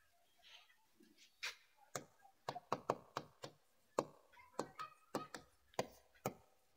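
Chalk writing on a blackboard: faint, irregular taps and clicks as the letters are written, starting about a second and a half in.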